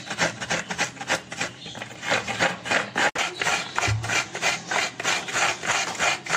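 Fresh coconut half being scraped against the serrated steel blade of a hand coconut grater, a fast run of rasping strokes as the white flesh is shredded off.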